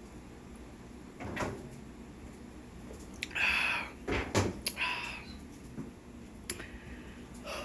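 Kitchen handling sounds: a knock, then a few sharp clicks and knocks with short rustling noises between them, like a cupboard or appliance door being opened and shut.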